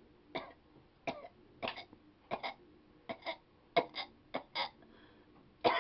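A person's voice imitating a cat retching: short gagging coughs about every two-thirds of a second, many in pairs, coming faster and louder near the end.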